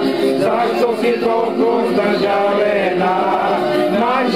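Several voices singing together in a chant-like group song, sustained and unbroken.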